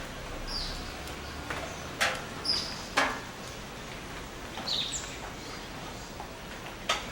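Rainforest birds calling at dawn: scattered short chirps and a few sharp, loud single notes over a steady background hiss of the forest.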